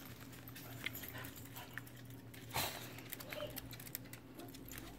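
Two small house dogs moving about: scattered light clicks of claws on a tile floor, and one short breathy huff from a dog about halfway through, over a steady low hum.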